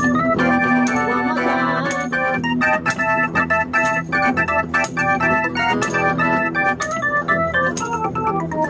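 Live band music led by an electronic keyboard playing a quick run of melody notes over held low notes, with a double bass and short sharp ticks keeping time.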